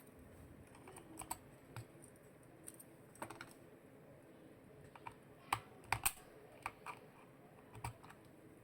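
Keystrokes on an Epomaker SK98 mechanical keyboard fitted with RK Snow King switches and MOA-profile keycaps. The keys are pressed singly and irregularly, about a dozen separate clacks with gaps between them, not continuous typing.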